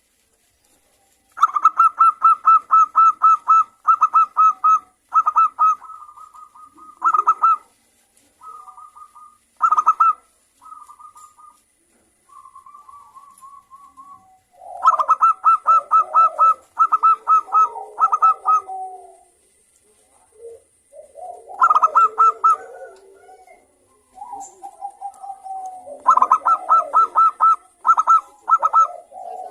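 Zebra doves (perkutut) singing their stuttering coo song: phrases of rapid, evenly repeated notes lasting a second or two, broken by short pauses, with softer, lower-pitched cooing between the phrases.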